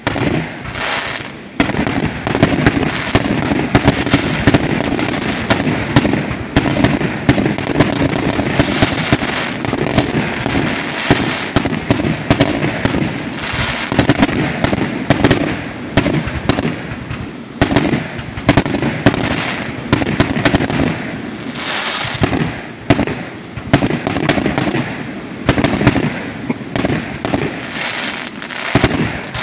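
Aerial fireworks bursting in quick succession: many sharp bangs close together, with crackling between them.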